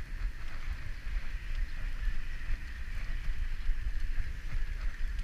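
Wind buffeting the microphone as a bicycle rolls along a wet paved path, a gusty low rumble over a steady hiss of the tyres on the wet surface.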